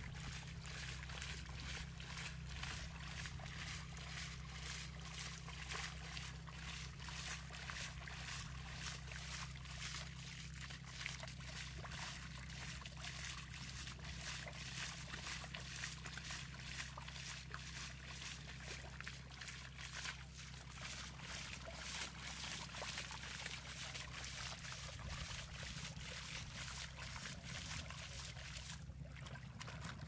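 Hands sloshing and scooping in shallow muddy water, with repeated small splashes and trickles throughout, over a steady low hum.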